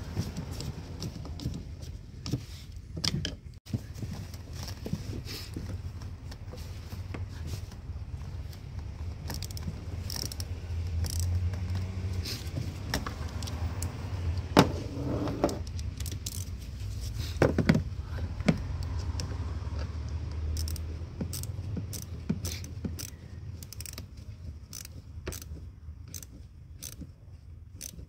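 Metal clicks and clinks of hand tools working a hose clamp on a heater hose, over a steady low hum. Two sharper clicks stand out in the middle, and a run of evenly spaced clicks, about two a second, comes over the last several seconds.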